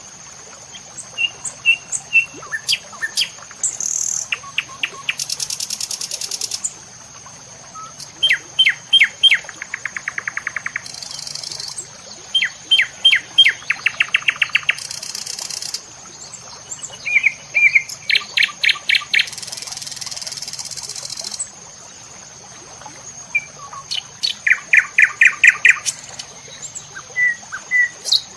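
A bird singing repeated phrases, each a run of sharp whistled notes followed by a rapid trill, over a steady high-pitched tone and occasional short bursts of high hiss.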